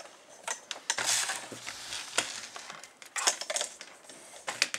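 Handling noise: irregular clicks, knocks and rustles as cable plugs are fitted into the back of a laptop's plastic case, with a short cluster of clicks about three seconds in.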